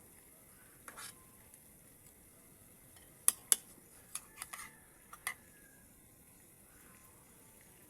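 Kitchen utensil clinking against cookware, several sharp knocks: one about a second in, then two loud clinks a little after three seconds and a few lighter ones over the next two seconds.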